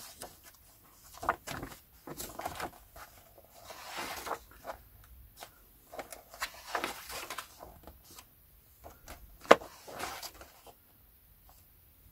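Hardback book in a paper dust jacket and a paper magazine being handled: intermittent rustling of paper and light knocks, with one sharp tap about nine and a half seconds in.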